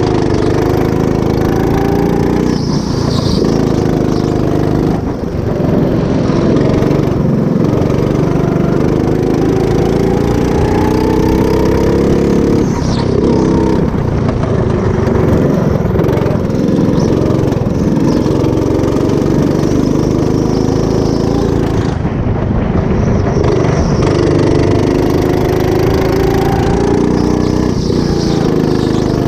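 Go-kart engine at racing speed, heard from the driver's seat. The engine pitch climbs as it revs out along the straights and falls away when it slows for the corners, over and over.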